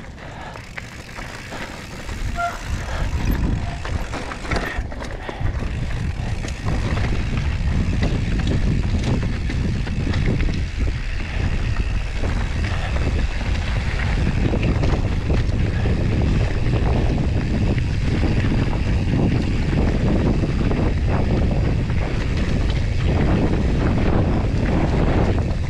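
Mountain bike riding over rough dirt and rock: wind rushing over the action camera's microphone and the tyres and bike rattling over the trail. The rush grows louder about six seconds in, as the bike picks up speed, then holds steady.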